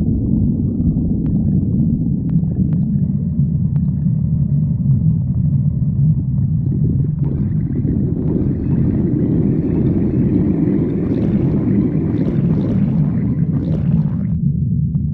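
A person's stomach growling, heard close up: a continuous low rumble, joined about seven seconds in by higher, bubbly gurgling that stops suddenly about a second before the end.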